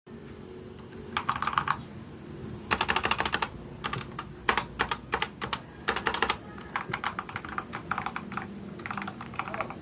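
Mechanical keyboard being typed on: quick runs of key clacks in short bursts, with brief pauses between them.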